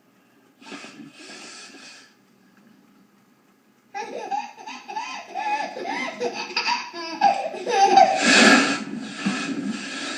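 A woman blowing her nose hard into a tissue about a second in. From about four seconds a baby's loud voice in short, halting bursts, the startled reaction to the nose blowing, with a second loud nose blow about eight seconds in.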